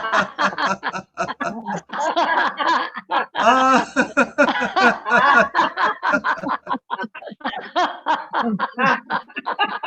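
People laughing on cue over an online video call, a continuous run of rapid ha-ha laughter as a group laughter exercise.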